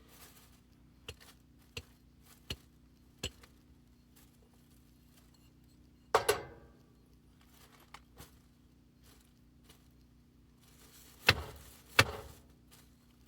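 Objects being handled and set down: four light clicks in the first few seconds, then a sharp knock with a short ringing about halfway, and two more knocks about a second apart near the end, over a faint steady low hum.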